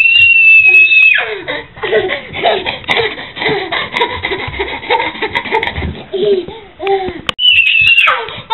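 A baby's high-pitched squeal of delight, then several seconds of laughter, and another high squeal near the end.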